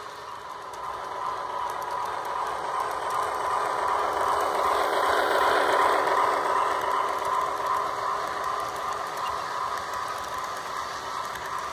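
HO scale model of a PRR E6 4-4-2 steam locomotive and its passenger cars running on the track: a steady rolling and mechanism noise that swells as the train passes close, about five to six seconds in, then eases off.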